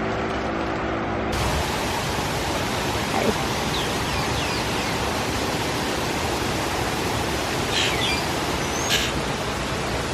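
Steady rushing of a waterfall, which sets in suddenly about a second in, with a few short, faint high chirps over it.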